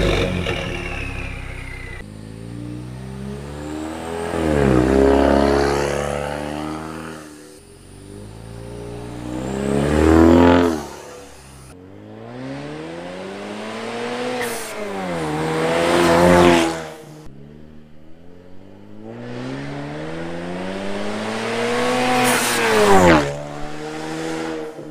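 Ford Mustang EcoBoost's turbocharged 2.3-litre four-cylinder running through a catless downpipe, stock resonator and muffler delete. It opens with a rev dropping back, then makes about four wide-open-throttle pass-bys, each rising in pitch and loudness to a peak and falling away as the car goes past.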